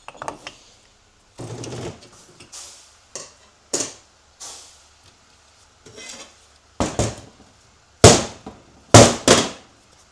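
Metal transmission parts clinking and clanking as they are handled and set down on the bench, a run of separate knocks and clinks, with the two loudest clanks near the end.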